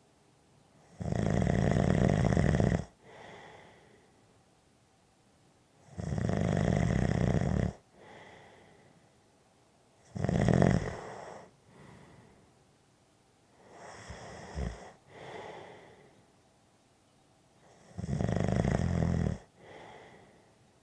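A person snoring in a slow, regular rhythm: five loud snores roughly every four seconds, the fourth one weaker, each followed by a softer, shorter breath.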